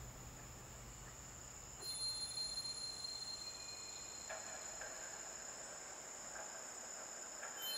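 Quiet beatless ambient electronic music with high steady sustained tones, rising about two seconds in, and faint softer notes entering about four seconds in.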